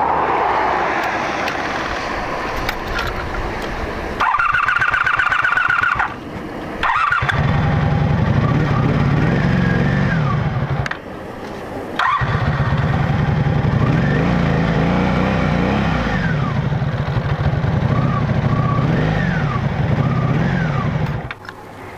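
Honda Magna 700's V4 motorcycle engine being restarted: a short high-pitched electric buzz for about two seconds as the key is switched back on, then the engine runs, cuts out for about a second near the middle, and runs again. The bike's failing electric fuel pump only pumps when the key is cycled, so the engine keeps dying from fuel starvation.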